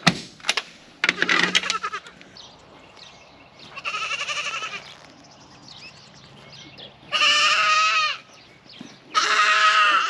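Goats bleating: three long, wavering bleats of about a second each, a fainter one about four seconds in, then two louder ones near the end.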